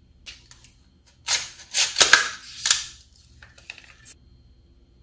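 Handling noise of an AR-15-style rifle being turned over in the hands: a cluster of sharp clicks and rattles from about one and a half to three seconds in, with a few lighter clicks before and after.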